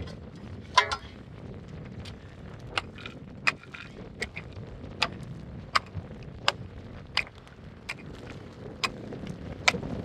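A short-handled digging tool chopping into stony, dry soil: sharp strikes about every three-quarters of a second, with the blade knocking on earth and stones, over a low rumble.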